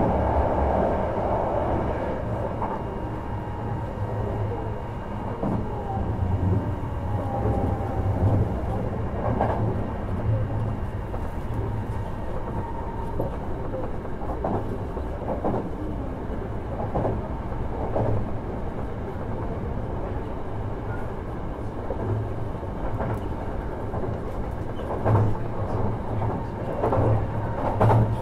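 Running sound heard inside a Hankyu 1000 series electric train car at speed between stations: a steady rumble of wheels on rail with scattered clicks as the wheels cross rail joints, and a thin steady tone above the rumble.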